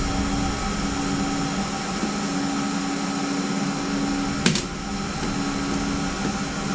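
A steady fan hum carrying a few faint constant tones, with one sharp click about four and a half seconds in.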